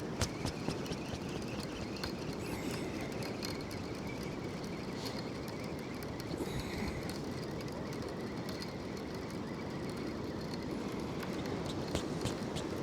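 Steady wind and sea swell noise on an exposed pier, with scattered light mechanical clicks that come thickest about the first second.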